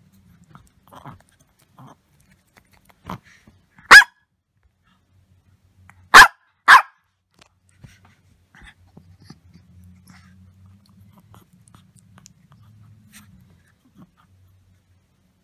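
Small long-haired dog barking: a softer yip about three seconds in, a loud bark a second later, then two loud barks close together about two seconds after that.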